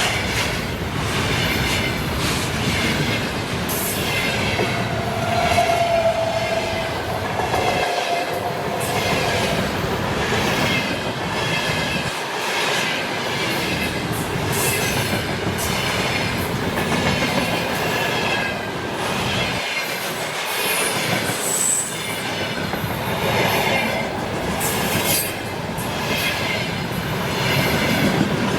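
A train's wagons rolling past close by, wheels clattering over the rail joints in a steady rhythm, with brief wheel squeals, one about six seconds in and a high one about twenty-two seconds in.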